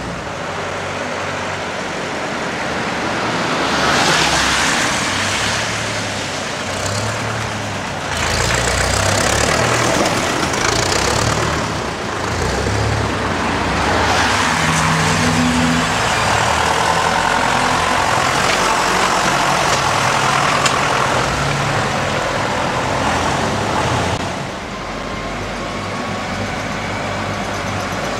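A line of diesel tractors driving past one after another on a wet road: engines running, with tyre hiss off the wet tarmac swelling as each one passes, about three times.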